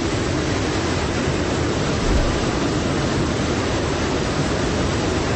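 Loud, steady rush of wind and engine noise inside an Antonov An-26 cabin, its rear cargo door open in flight. A brief low thump comes about two seconds in.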